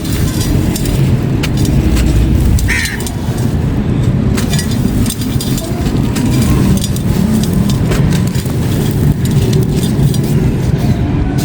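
Dry grey concrete pieces crumbling and crunching in sharp, scattered cracks, over a loud, constant low rumble.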